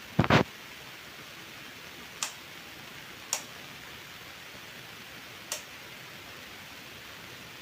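Sanyo EF-A56C 56-inch industrial ceiling fan running with a steady whoosh of air. There is a loud double click just after the start, then three single sharp ticks spaced a second or two apart.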